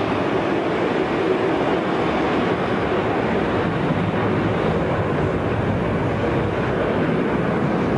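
Boeing 747's jet engines at takeoff thrust as it lifts off, a steady loud rushing noise.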